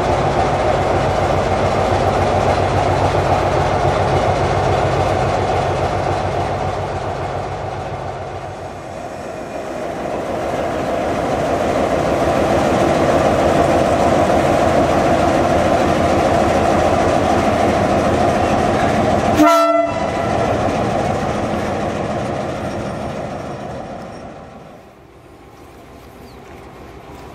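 Dalian-built DF class diesel-electric locomotive running loud and steady as it hauls wagons past, wheels rolling on the rails. A short sharp sound breaks in about two-thirds of the way through, and near the end the sound drops to a quieter, more distant locomotive.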